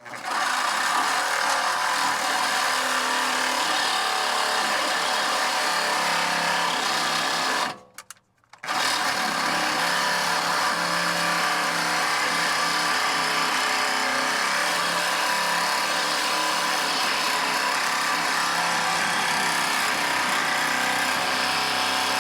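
Reciprocating saw running steadily as its blade cuts into a rusted steel exhaust pipe joint, making slow progress through the metal. It stops for under a second about 8 s in, then starts again and runs on.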